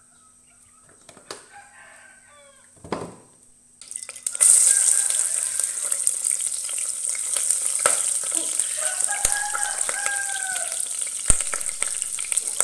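Sliced onions dropped into hot oil in a pot, starting a loud, steady frying sizzle about four seconds in. A rooster crows faintly early on and again more clearly over the sizzle a few seconds later.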